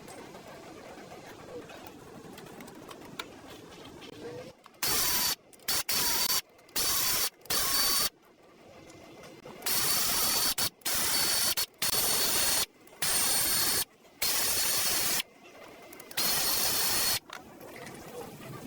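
A faint steady background hum. From about five seconds in it is broken by about eleven loud bursts of hiss with a high whine, each under a second long, starting and stopping abruptly, like a compressed-air tool being triggered.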